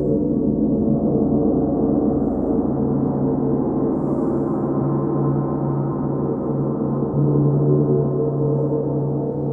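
Large bronze gongs played softly with felt-tipped mallets: a continuous, dense ringing of many overlapping tones with no separate strikes standing out. The ringing swells a little about seven seconds in.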